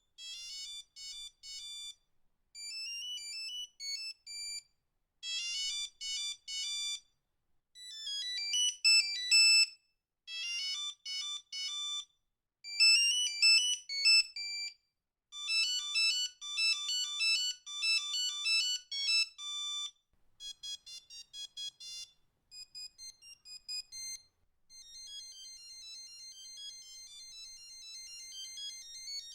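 Original Nokia 3210's built-in monophonic ringtones playing one after another: short, high-pitched bleeping electronic melodies, several different tunes separated by brief pauses.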